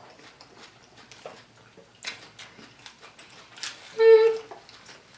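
Eating sounds: soft chewing and scattered clicks of cutlery. About four seconds in, one loud, high-pitched whine lasts about half a second.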